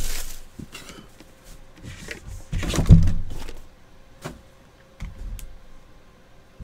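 A hard trading-card box being handled on a desk, with scraping and rustling. It is set down with a low thump about three seconds in, followed by a couple of lighter knocks.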